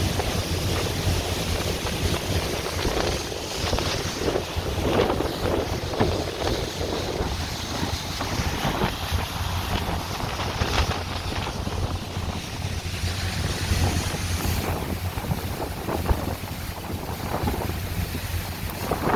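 Tour boat under way on open lake water: a steady low engine drone under gusting wind on the microphone and the rush of water.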